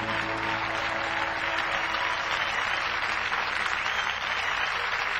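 Studio audience applauding, with the band's last held chord dying away in the first couple of seconds.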